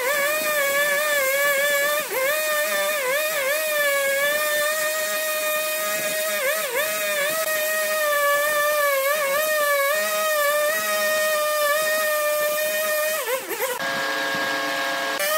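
Husqvarna two-stroke chainsaw running at high revs while cutting into a log, its pitch dipping briefly several times as the chain bites. About a second and a half before the end the pitch drops sharply and the sound changes.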